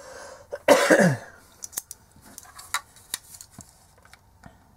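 Small sharp clicks and scrapes of a thin metal pick working at the glued seam of a plastic USB charger housing, trying to pry the two halves apart. About a second in, the loudest sound is a short vocal sound from the person that falls in pitch.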